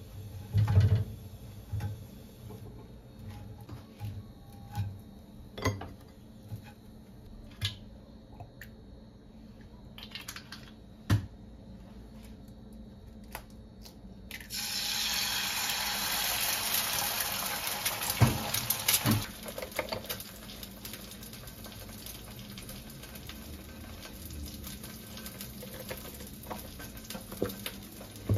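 A few light knocks and taps on a frying pan, then about halfway through a sudden loud sizzle as oil and an egg go into the hot pan, easing into a steadier frying sizzle with a couple of sharp knocks.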